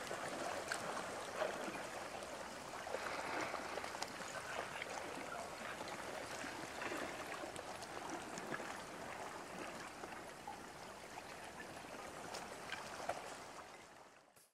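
Broken ice floes and slush jostling in the water at the shoreline: a steady watery wash with many small scattered clicks and tinkles. It fades out near the end.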